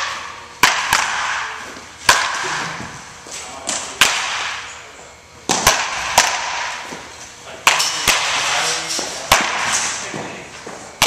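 Baseball bat striking pitched balls in a batting cage: a sharp crack about every one and a half seconds, each ringing out briefly, several followed closely by a softer knock.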